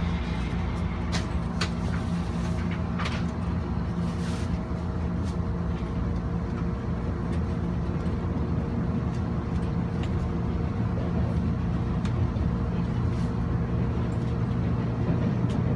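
Cabin noise inside a TRA Puyuma (TEMU2000) tilting electric multiple unit under way: a steady low rumble and hum, with a few faint clicks in the first few seconds.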